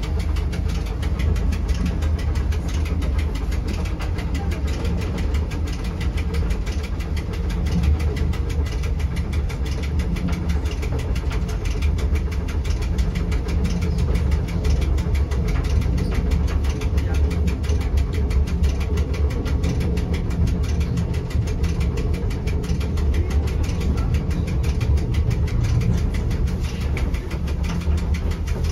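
Electric rack railway train running steadily along the track, heard from inside the driver's cab: an even low drone of the drive and the cogwheel on the rack, with no change in speed.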